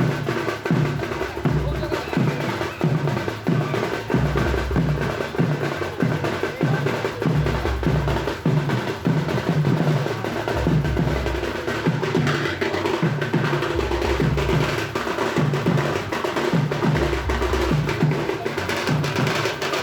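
Wedding dhol drumming: a fast, steady beat of booming strokes that drop slightly in pitch, with a heavier low thump about every three seconds.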